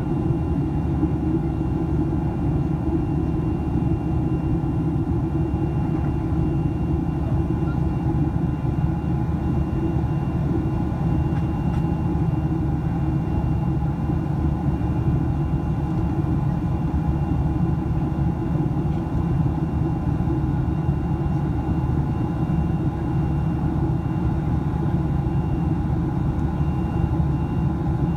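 Boeing 737 cabin noise in flight: the steady drone of the jet engines and the airflow past the fuselage, a low rumble with faint steady tones above it.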